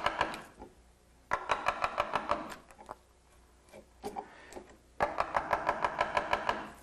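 Carver's mallet tapping the handle of a wood-carving gouge in quick light strikes, about seven a second, in three short runs, each tap ringing briefly. The gouge is being driven straight down to make vertical stop cuts into the wood.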